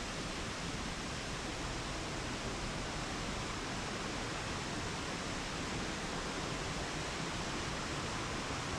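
Waterfall on the West Fork of the Pigeon River rushing steadily over boulders: a continuous, even roar of falling water that does not change.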